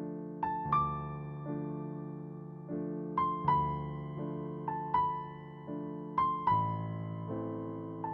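Background piano music: a gentle, slow piece with soft chords and a melody of struck notes.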